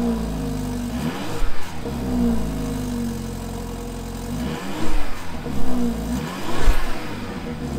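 BMW F30 328i's 2.0-litre turbocharged four-cylinder idling and revved three times, each rev rising and falling back to idle, heard at the twin tailpipes of the stock exhaust with its muffler and resonator still fitted. It isn't too loud.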